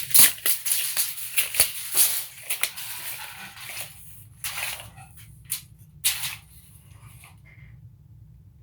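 Project Source 25-foot tape measure's steel blade being run out and slid back into its case, a dense run of rattling clicks and scrapes over the first four seconds, then a few separate clicks and swishes.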